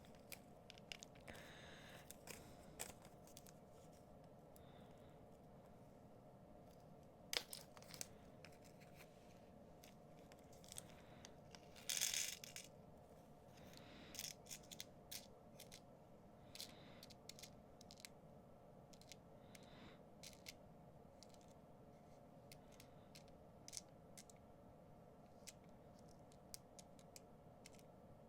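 Faint, sparse handling of a small pack of metal jump rings: scattered light clicks and short rustles of packaging, with one longer rustle or tear about midway.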